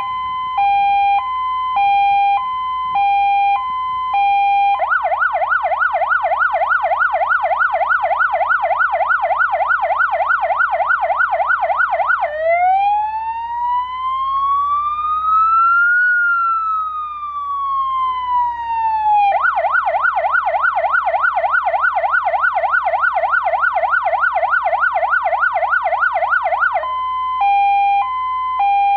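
Electronic siren of a Daewoo Lublin II fire-brigade van cycling through its tones. It starts with a hi-lo two-tone switching about twice a second, then a fast yelp sweeping up and down about four times a second. Next comes one slow wail that rises and falls, then the fast yelp again, and back to the two-tone near the end.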